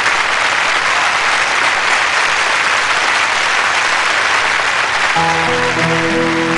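Studio audience applauding steadily. About five seconds in, the band's instrumental intro starts under the applause with long held notes.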